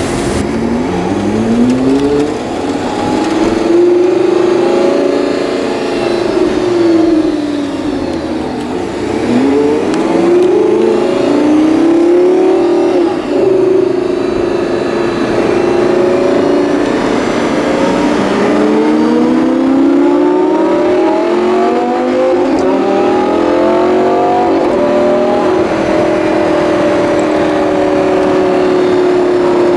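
Lamborghini Gallardo LP570-4 Performante's V10 heard from inside the cabin, revving up and down and accelerating through several gears, each rise in pitch cut off by an upshift, settling into a steadier note near the end.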